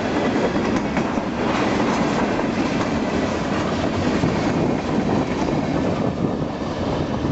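Freight cars of a Union Pacific train rolling past with a steady, loud rumble of wheels on rail and a clickety-clack over the rail joints.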